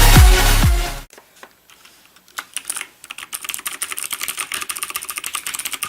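Electronic dance music with a pulsing kick drum cuts off about a second in. After a short gap, a few single keystrokes, then fast, continuous typing on a clicky mechanical keyboard, the Nixeus Moda v2 with Kailh Blue switches.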